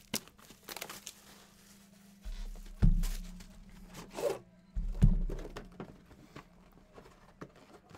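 Clear plastic wrapping crinkling with small handling clicks, then two dull thumps about three and five seconds in as an aluminium card briefcase is handled and set down on a table.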